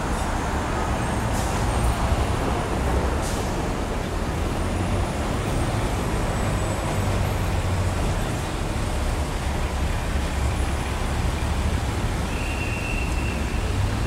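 Steady city street traffic noise: a continuous low rumble of passing vehicles under a dense street hiss, with a brief high tone near the end.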